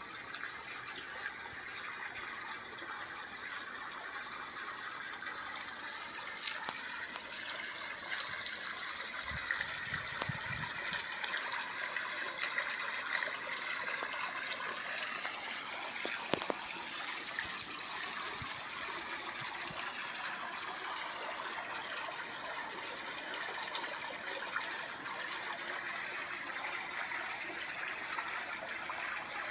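Steady splashing of water pouring from the return fitting of an Intex above-ground pool into the pool water.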